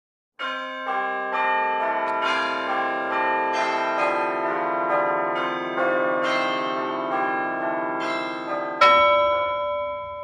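Bells ringing a run of overlapping notes, struck about twice a second, each note ringing on. Near the end a single louder strike rings out and slowly fades.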